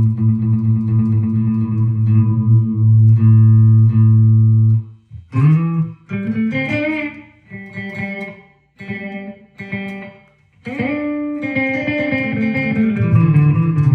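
Electric guitar, a Gibson Les Paul through a Marshall amp, played through an Electro-Harmonix #1 Echo digital delay pedal with the feedback turned down. A long low note rings for about five seconds and cuts off abruptly, then come picked notes with string bends in short phrases.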